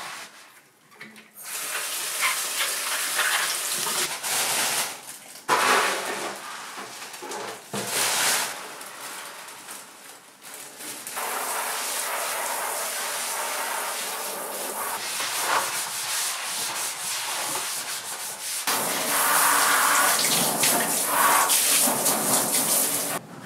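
A cloth scrubbing a sink faucet with a rubbing, hissing sound. From about halfway through, a shower head sprays a steady hiss of water into a plastic litter box, and the spray grows louder near the end as the box is rinsed and tipped to drain.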